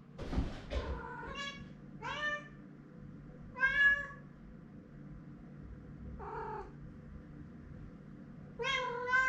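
Domestic cat meowing five times, with one to two seconds between calls; the fourth meow is shorter and lower. The cat is calling out while it searches for its hidden owner.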